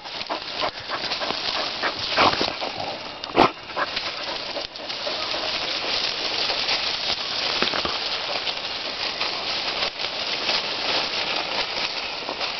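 Leaves and twigs rustling and crackling steadily as a dog forages through dense woodland undergrowth. A few short, sharper sounds stand out in the first few seconds, the loudest about three and a half seconds in.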